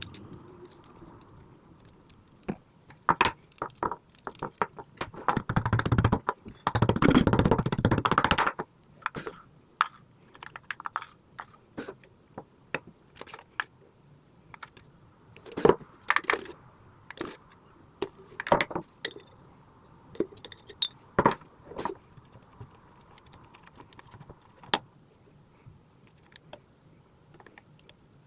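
Scattered clinks, taps and clicks of utensils and containers being handled during kitchen preparation, with a louder rushing noise for about three seconds around six seconds in.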